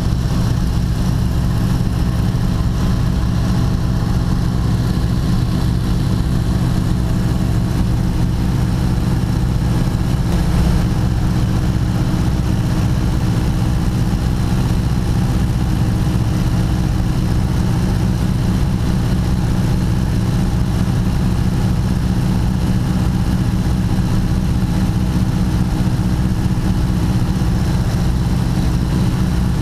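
Ford Tri-Motor's three radial engines and propellers running steadily at cruise, heard from inside the cockpit as an even, unbroken drone.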